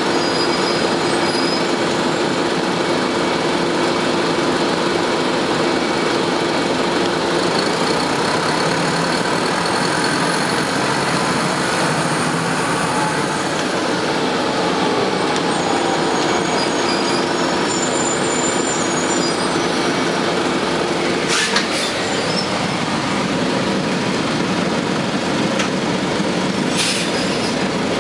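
Detroit Diesel Series 50 engine and Allison transmission of a 1998 Nova Bus RTS city bus, heard from inside while riding, running steadily under the hum of the air conditioning. Its pitch rises and falls faintly in the middle, and there are sharp clicks about two-thirds through and near the end.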